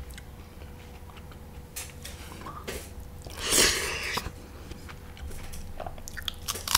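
A person chewing a mouthful of food close to the microphone, with many small wet mouth clicks. A louder noisy mouth sound comes about three and a half seconds in.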